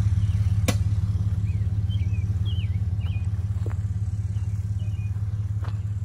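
Truck engine idling steadily: a deep, even hum with a fast pulse. A sharp click comes just under a second in, and a few short high chirps between about one and a half and three seconds.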